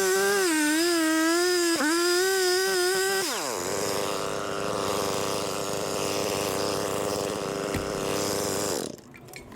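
Two-stroke chainsaw running at high revs with its pitch wavering and dipping twice, then dropping to idle about three seconds in and idling steadily. Near the end the engine is switched off.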